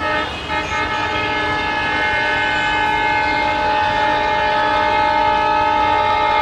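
Air horn of an ALCo WDM 3A diesel locomotive sounding one long, steady blast as the train approaches people walking on the tracks.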